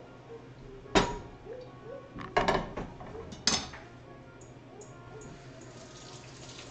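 Kitchenware clattering on a countertop: sharp knocks about one second in, a cluster about two and a half seconds in, and another about three and a half seconds in. A kitchen tap runs near the end.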